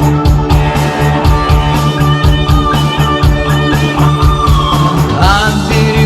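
Rock song intro with no vocals yet: a steady drum kit beat under guitars, with a rising melodic glide about five seconds in.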